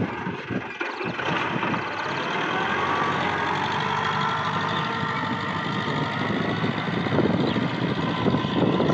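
TAFE 5900 DI tractor's direct-injection diesel engine running steadily under load while it drives a rotary tiller through the soil.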